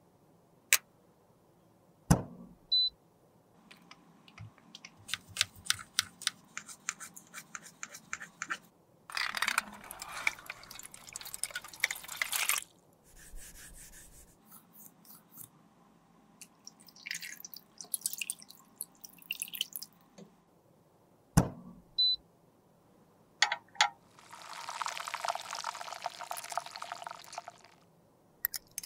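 Close-up handling sounds while reworking cream makeup in small glass beakers: two sharp knocks, one about two seconds in and one about two-thirds through, runs of quick tapping clicks, and a few seconds-long scraping passes, the longest near the end.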